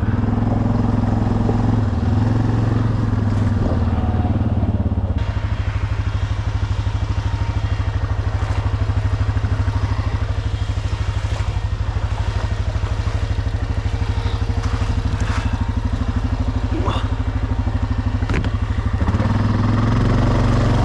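ATV engine running steadily while towing a kayak trailer, with scattered knocks and rattles. The engine note is fuller for the first five seconds and again near the end.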